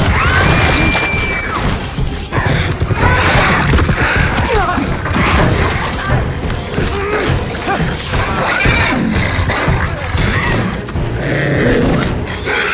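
Film action-scene sound mix: a warg snarling and growling, people shouting and crying out, and chains and debris clattering, over dramatic orchestral music.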